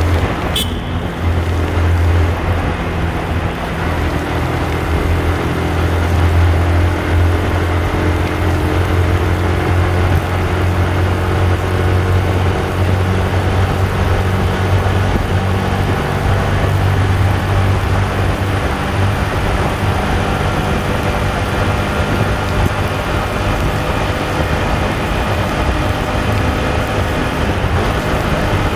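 Yamaha R15 V2's single-cylinder four-stroke engine running steadily at high revs, around 8,000 rpm, while the motorcycle cruises at speed inside a road tunnel. A short sharp click about half a second in.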